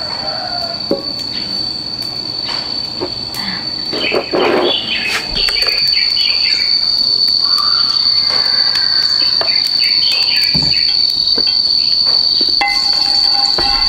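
Insects, probably crickets or cicadas, keeping up a steady high-pitched drone on one unbroken tone. Scattered knocks and clatter sound over it, and music comes in near the end.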